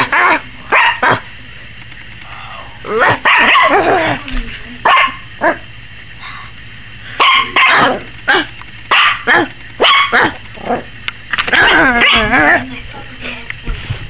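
Yorkshire terrier puppy barking in short volleys, with pauses of a second or two between them. She is barking at the camera, which the owner thinks has scared her.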